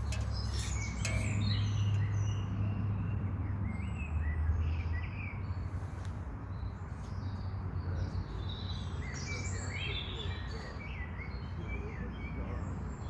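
Small birds chirping and singing, many short calls overlapping, over a low steady rumble.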